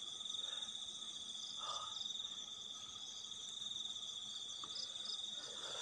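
Crickets trilling steadily at a high pitch, several overlapping in a continuous night chorus.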